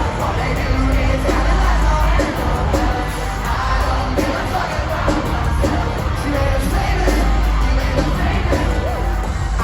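Live rock band playing loudly, with heavy bass and drums, heard through a phone microphone in a concert hall, with singing and crowd shouts mixed in.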